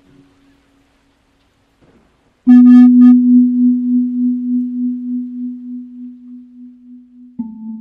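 A low ringing tone struck suddenly about two and a half seconds in, with a brief buzzy high tone at its start, dying away slowly with a wavering pulse. A second, softer strike of a similar low tone comes near the end.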